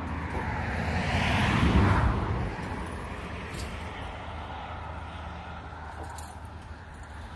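A road vehicle passing close by, its noise swelling to a peak about two seconds in and then fading away.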